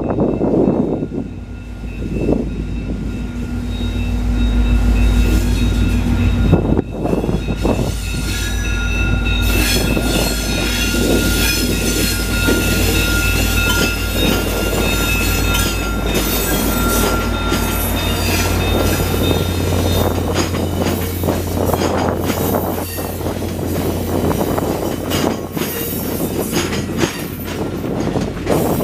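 A VIA Rail passenger train passing close, led by an F40PH-2 diesel locomotive. The locomotive's engine gives a deep, steady rumble that swells as it draws near. Then the stainless-steel passenger cars roll by with a rushing wheel-and-rail noise, clicking over rail joints, and a thin high squeal for several seconds.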